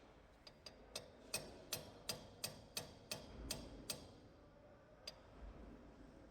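A series of about ten sharp, ringing clicks, roughly three a second and getting louder, then one more click a second later.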